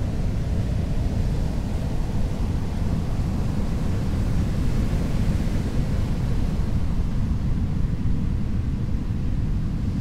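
Ocean waves: a steady low rumble of surf, with the hiss of a wave's wash swelling up about halfway through and easing off.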